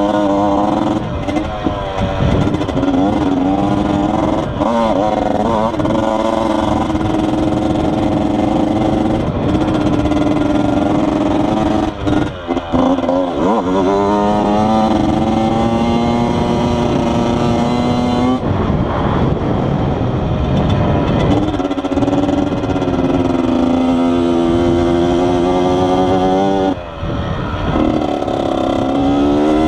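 Yamaha YZ80's single-cylinder two-stroke engine under way, the revs climbing and falling again and again as it pulls through the gears. The engine note drops away briefly near the middle and again near the end as the throttle is shut, then picks back up.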